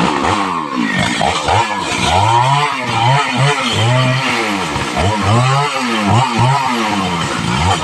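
A small engine revving up and falling back over and over, about once a second.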